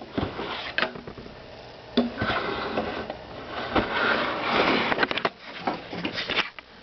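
Handling noise as a Lego model is lifted and turned around: rustling and scraping, with sharp light clicks of plastic bricks, loudest in the middle.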